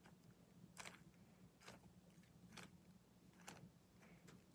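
Faint plastic clicks of a 3x3 Rubik's cube's layers being turned, about one a second, as a move sequence is worked through.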